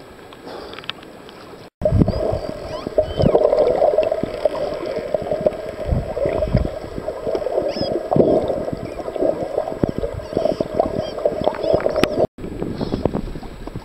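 Underwater sound of a dolphin pod: thin rising and falling whistles over a loud rushing water noise with scattered knocks. It starts abruptly about two seconds in and cuts off near the end, with softer surface water lapping on either side.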